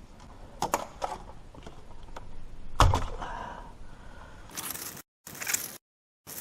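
Clicks and knocks from hands working plastic vacuum hoses and connectors: a sharp click under a second in and a louder knock near three seconds, then short scraping bursts cut off abruptly near the end.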